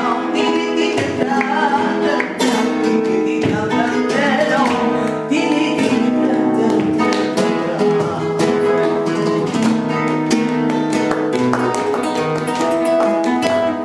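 Flamenco music on acoustic guitar, with strummed chords struck again and again.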